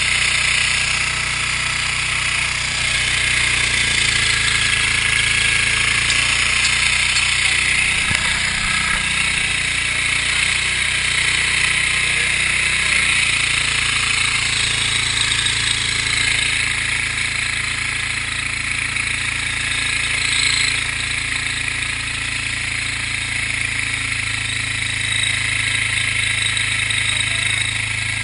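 A fire pump's engine running steadily under a loud, constant rushing hiss of water being driven through a piercing nozzle. The low hum shifts about eight to ten seconds in, then holds steady.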